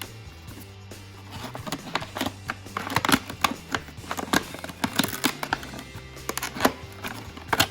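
Background music with held low bass notes, over irregular clicks and crinkles of headphone packaging being handled and opened.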